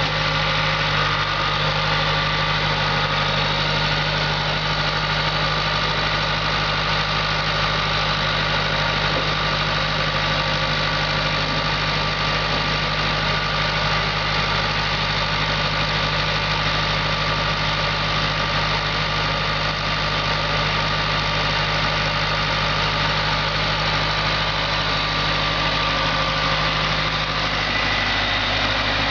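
International 574D tractor's four-cylinder diesel engine running steadily at a low, even speed.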